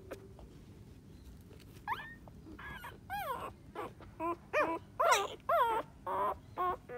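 Young puppy whimpering: a run of short, high-pitched whines, each rising and then falling, starting about two seconds in and coming close together.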